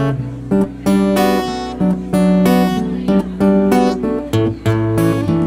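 Acoustic guitar strummed live: a regular rhythm of chord strokes with the notes ringing between them.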